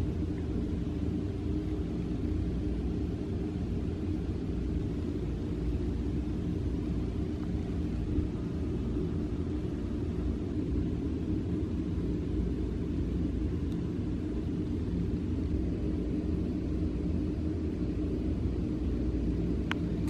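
Steady low droning hum of background machinery, unchanging throughout, with a single sharp click near the end.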